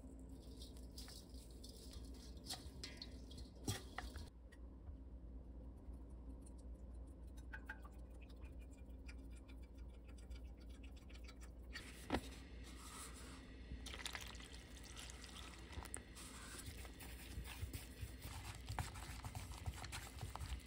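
Faint kitchen preparation sounds over a low steady hum: wooden chopsticks working food in a stainless steel bowl, cooking oil pouring into a frying pan, then chopsticks stirring frying batter, with scattered light clicks against the metal.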